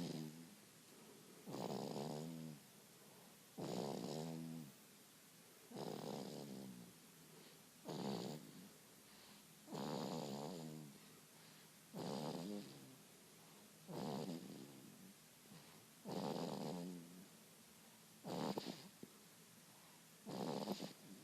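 Snoring in deep sleep: a rasping, pitched snore on each breath, about one every two seconds.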